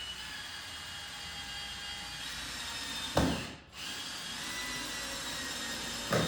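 Power drill driving a long screw at an angle into wood framing to draw the pieces tight: the motor runs steadily with a whine for about three seconds, stops with a sharp knock, then runs again for another two seconds or so.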